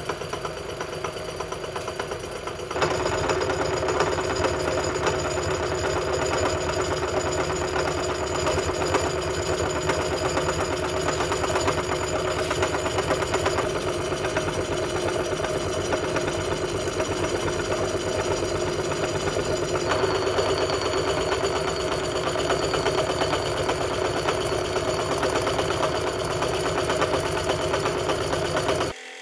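Bridgeport milling machine running a 3-inch face mill across the steel top of a railroad-rail anvil, a steady cutting sound with a hum. It gets louder about three seconds in and cuts off suddenly just before the end.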